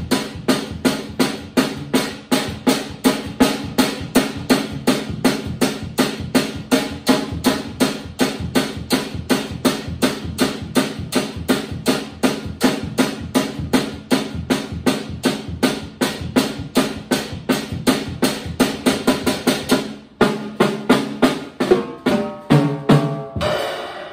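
Drum kit played in a steady beat of evenly spaced strokes. About 20 seconds in there is a brief break, then a fill stepping down in pitch, ending in a crash cymbal hit that rings out.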